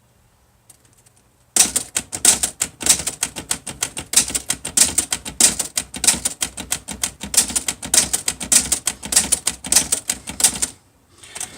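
Olivetti-Underwood Studio 44 manual typewriter being typed on: a fast, uneven run of sharp key-and-typebar strikes against the platen, starting about a second and a half in and stopping shortly before the end.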